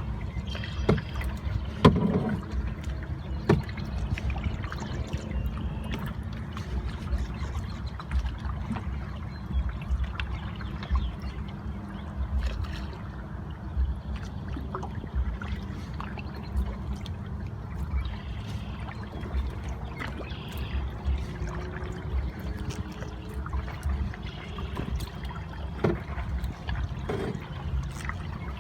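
Kayak paddling: water trickling and splashing off the paddle blades, with scattered light knocks and splashes, over a steady low rumble of wind on the microphone.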